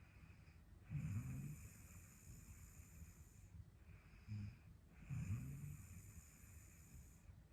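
A woman snoring in her sleep: slow, regular breaths with a low rasping snore about a second in and another about five seconds in.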